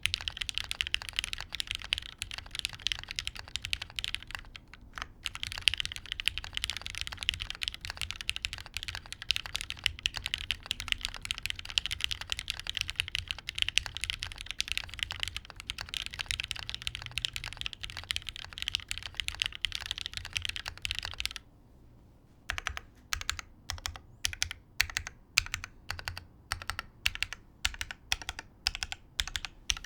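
Typing on a gasket-mounted Gok Type K mechanical keyboard with lubed, broken-in Cherry MX Black linear switches in an aluminium half plate, under GMK keycaps. Rapid continuous keystrokes with a brief break about five seconds in. From around twenty-one seconds it changes to slower, separate key presses.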